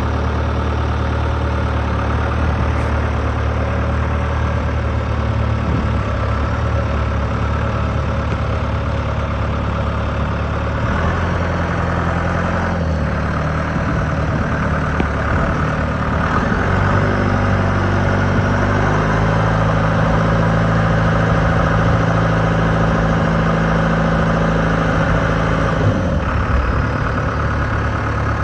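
John Deere 5093E tractor's four-cylinder diesel engine running steadily, its speed stepping up and down several times from about eleven seconds in as the front loader is raised.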